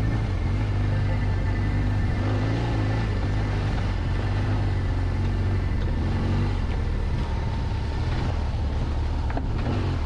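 BMW R1200GS flat-twin motorcycle engine running as the bike rides a dirt trail, its pitch rising and falling with the throttle, with a few knocks near the end.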